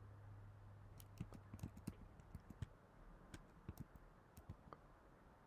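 Faint, irregular taps on a computer keyboard, a quick uneven run of clicks for about four seconds starting about a second in, over a faint low hum.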